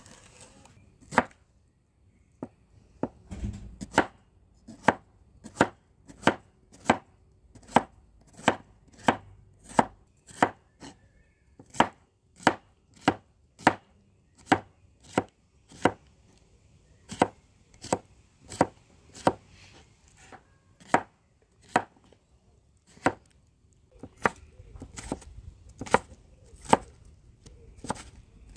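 Knife chopping vegetables on a cutting board: steady, evenly spaced single strokes about one and a half a second, with a couple of brief pauses.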